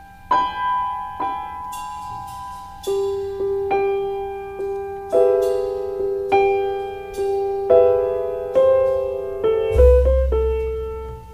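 Background music: a slow melody of single piano notes, each struck and left to ring and fade, about one a second. A low bass sound comes in near the end.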